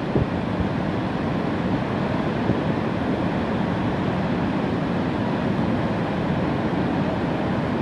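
Niagara's American Falls: a steady, even rush of falling water.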